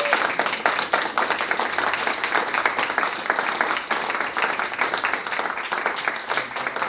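A roomful of people applauding, a dense, steady patter of hand claps.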